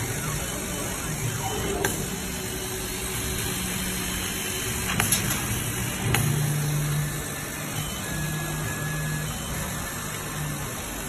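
Laser cutting machine at work on an acrylic sheet: a steady hiss under the motor hum of the moving head, whose tones step and change as it travels. A few sharp clicks come about two, five and six seconds in.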